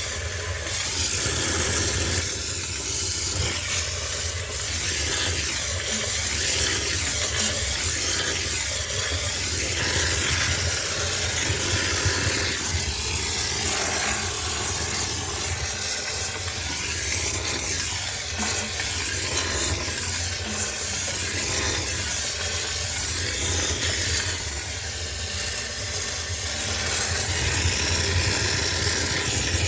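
High-pressure steam cleaner hissing steadily as it steam-sterilizes a sneaker washing machine, with a low machine hum underneath.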